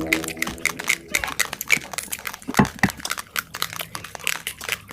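Raw basmati rice being chewed close to the microphone: a dense run of quick, crisp, irregular crunches.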